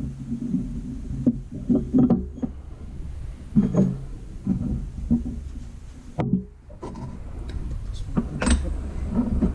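Irregular knocks and clunks of metal parts being handled and set in place: the cups and adapters of a ball joint press being fitted around a truck's upper control arm and ball joint, with a low steady hum under it.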